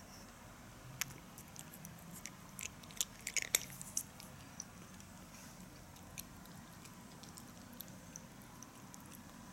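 A tuxedo cat chewing and crunching dry kibble, taken from the hand: a run of short, sharp crunching clicks, thickest in the first half and then thinning out to occasional bites.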